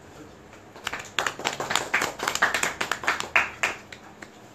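A small audience applauding: scattered hand claps start about a second in and die away near the end.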